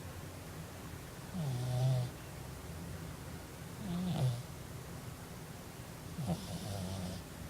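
A cat snoring in its sleep: three loud snores a little over two seconds apart, each one a low rasp that drops in pitch and then holds, with a breathy hiss.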